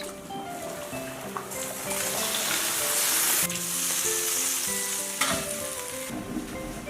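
Food frying in hot oil, a loud sizzle that swells about a second and a half in and dies down near the end, with a sharp click partway through; background music plays throughout.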